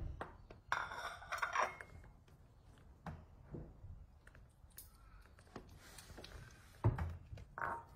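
A ceramic plate of dry cat food is set down on a tiled floor with a clink and a short scrape. Then a kitten crunches the kibble in faint small clicks. A sharp knock comes about seven seconds in.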